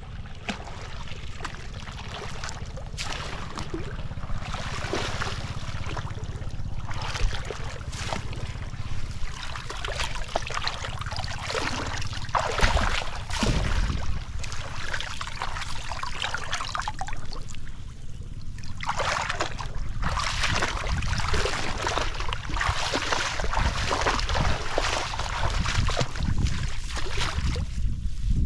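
Water splashing and sloshing irregularly, over a steady low rumble.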